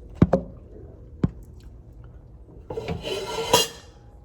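A kitchen scoop knocks sharply against a pan three times, then scrapes for about a second as cooked chicken is scooped up and moved.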